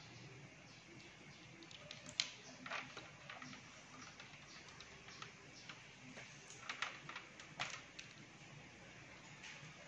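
Faint, scattered wet squelches and clicks from hands squeezing and handling a raw pork intestine, with a few sharper clicks about two seconds in and again around seven seconds.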